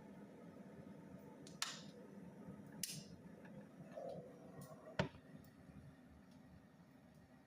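Switched-on electric kettle warming up, faint under a quiet background, with three sharp ticks about one and a half, three and five seconds in as its body heats.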